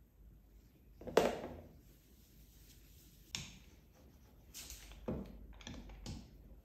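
Kitchen handling knocks: a solid thump about a second in, then several lighter knocks and taps as a wooden rolling pin is picked up and handled over tart dough on a wooden counter.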